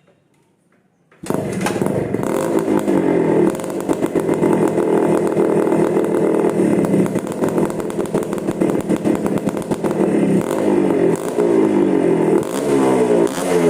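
Suzuki Shogun two-stroke motorcycle engine running through an expansion chamber exhaust, very loud, being revved up and down repeatedly. It comes in suddenly about a second in.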